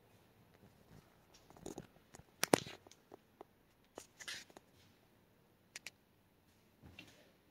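Scattered faint clicks, knocks and light scuffs from the person filming moving down a wooden-floored hallway, the loudest a sharp knock about two and a half seconds in.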